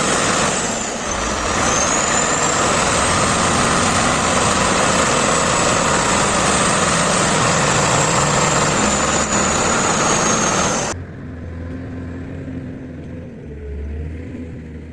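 A heavy diesel engine running hard under load, with a high steady whine over it that dips briefly about a second in. About eleven seconds in it cuts off suddenly to a much quieter, low engine rumble.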